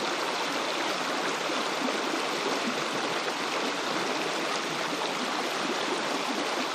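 Shallow river water rushing steadily over stones in a riffle.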